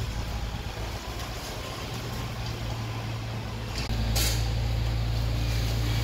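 A low, steady rumble of background noise, which steps up in level about four seconds in, with a brief burst of hiss just before the change.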